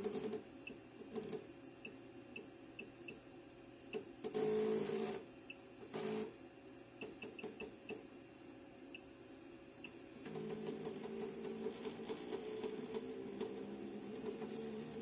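JACK JK-T1906 pattern tacker being jogged from its touchscreen programmer: short key beeps as the arrow keys are pressed, and the whir of the machine's feed motors moving the work clamp, in two brief runs near the middle and a longer steady run from about two-thirds through as a key is held.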